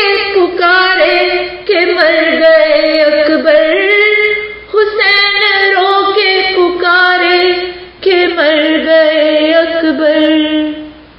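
A woman reciting an Urdu marsiya, a mourning elegy, solo and unaccompanied in a slow melodic chant. She sings four long phrases with a short breath between each.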